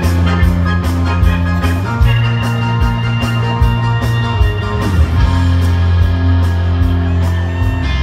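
Live rock band playing an instrumental passage: piano, electric guitar, bass and drums over a steady drum beat.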